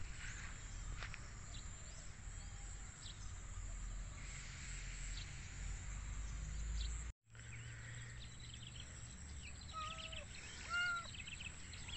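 Outdoor marsh ambience: a low steady rumble with scattered faint bird chirps, and two short pitched animal calls near the end. The sound cuts out completely for a moment a little past halfway.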